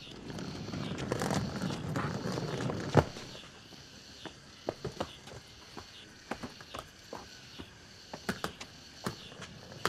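Rustling for the first three seconds, ending in one sharp click, then light footsteps and scattered soft taps at an irregular pace.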